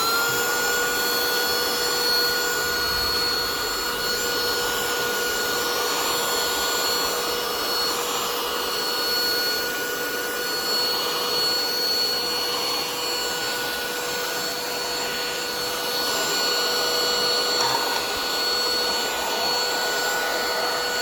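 eufy HomeVac H11 cordless handheld vacuum running steadily at full suction, its motor a constant high whine over a rush of air.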